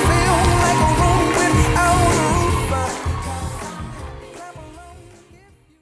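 Pop song with a sung vocal and a steady beat, fading out over the last few seconds.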